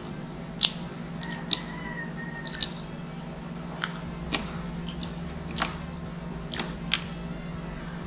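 Close-up eating sounds: chewing, with about eight sharp clicks as a metal fork strikes and scrapes a wooden board while gathering pancit noodles. A steady low hum runs underneath.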